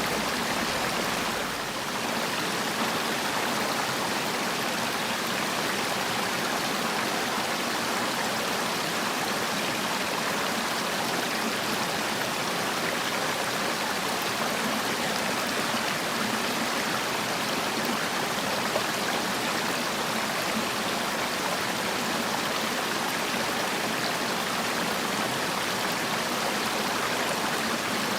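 Mountain valley stream, water flowing with a steady, even rush.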